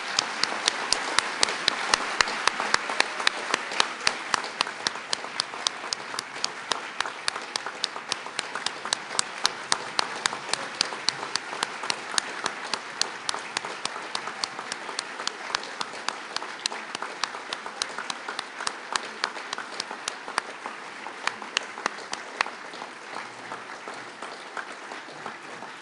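Audience applauding at length, with one nearby pair of hands standing out as sharp, evenly spaced claps; the applause slowly dies down toward the end.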